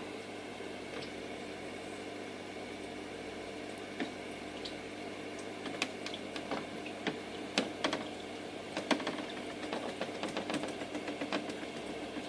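Aquarium equipment running with a steady hum and water burble, with scattered sharp clicks and taps from about four seconds in, coming thickest around the middle and later part.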